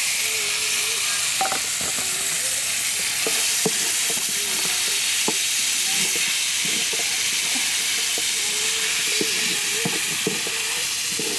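A large aluminium pot of stew boiling hard over a wood fire, giving a steady loud hiss, while a long spoon stirs it and clinks and scrapes against the pot in scattered knocks.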